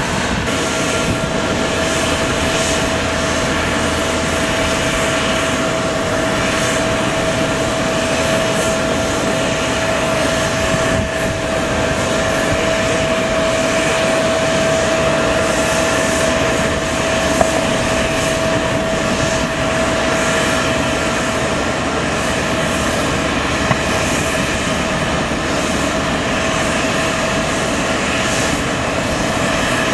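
Jet aircraft noise on an airport apron: a steady, loud rushing with a steady high whine, which fades somewhat about two-thirds of the way in.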